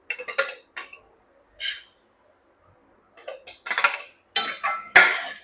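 Kitchen utensils and dishes clinking and scraping in a series of short, irregular knocks, busiest in the second half, with the loudest clatter about five seconds in.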